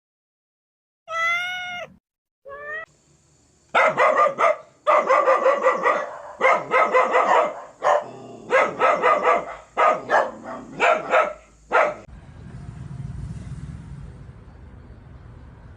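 A domestic cat meows twice, each call rising then falling in pitch. Then comes a long run of rapid, repeated animal calls lasting about eight seconds, and a low rumbling haze near the end.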